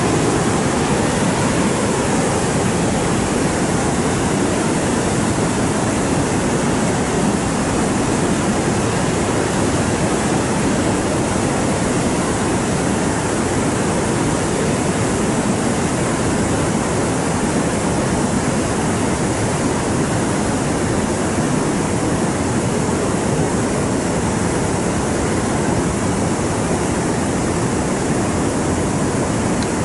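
Steady, loud rushing of water with no break or change.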